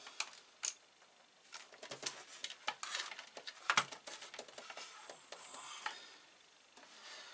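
Scattered light clicks and knocks with rustling as a flat-screen monitor and its plastic stand are shifted about on a desk and its cables are handled.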